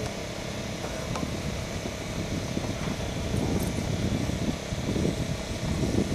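A radio-controlled 3D aerobatic airplane's motor and propeller running steadily in flight, over a low rumble that grows louder toward the end.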